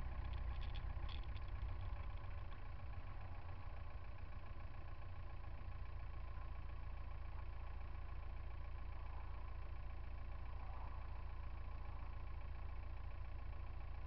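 Car engines idling in stop-and-go traffic, a steady low hum close to the road. It is a little louder for the first two seconds while the car creeps forward, then settles to an even idle.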